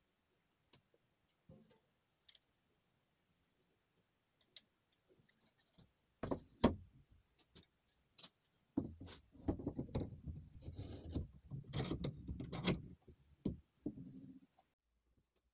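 Handling noise of a steel plate and a board on a wooden plank workbench: a few light clicks, then two sharp knocks about six seconds in, followed by several seconds of scraping and rubbing with small knocks as the pieces are set down and shifted into place.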